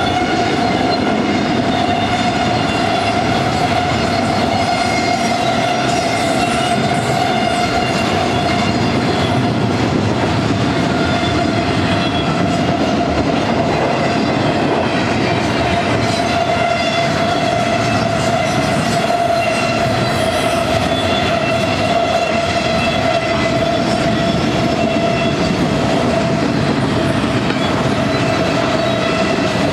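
Double-stack intermodal freight train's well cars rolling past close by: a steady rumble of steel wheels on rail, with a steady high-pitched ringing tone held over it.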